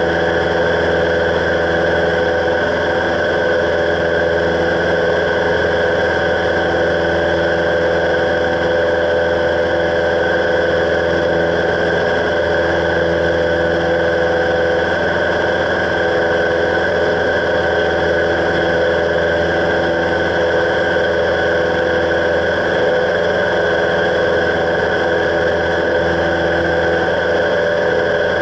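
Cessna 172's piston engine and propeller running steadily in flight, heard from inside the cockpit as an even, unbroken drone.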